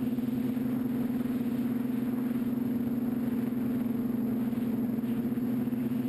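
TBS Discovery quadcopter's electric motors and propellers buzzing steadily in flight, heard from on board the airframe.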